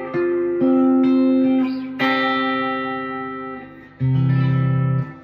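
Telecaster-style electric guitar fitted with a hand-operated B-string bender, playing a slow phrase of ringing notes to show the B-bend. A low note comes in about four seconds in and is cut off abruptly about a second later.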